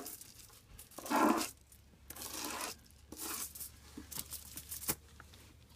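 Aluminium foil crinkling and scraping as a comb is drawn through bleach-soaked hair extensions lying on it, in a few short strokes, with small clicks and taps in between.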